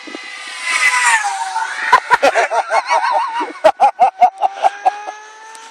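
Electric motor and propeller of a Great Planes Rifle RC pylon racer whining as it makes a fast low pass; the pitch drops about a second in as it goes by. The sound then wavers and breaks into quick choppy pulses as the plane moves away.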